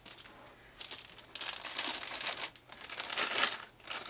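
Clear plastic bag crinkling in repeated bursts as a camera lens is handled inside it and pulled out. The rustling starts about a second in.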